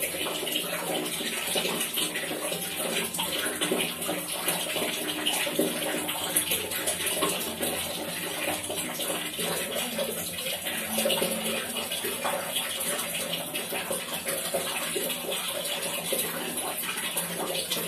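Water dripping and trickling steadily, a continuous run of small drops and splashes at an even level.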